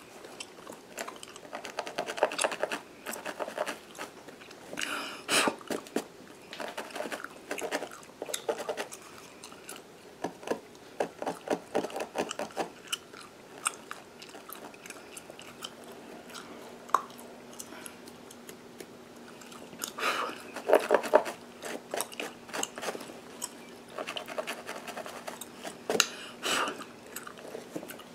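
Gum being chewed and smacked close to the microphone: quick wet clicks and pops in clusters lasting a second or two, with quieter pauses between.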